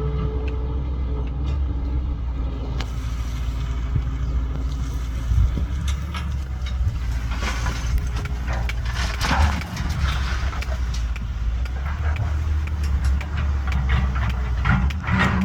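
CAT 320BL excavator's diesel engine running steadily under working load, with louder, noisier stretches about seven to ten seconds in.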